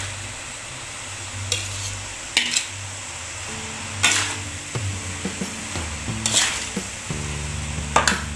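Noodles and vegetables stir-frying in a metal wok: a steady sizzle, with a metal spatula scraping and clattering against the wok about every second or two. Background music comes in about halfway through.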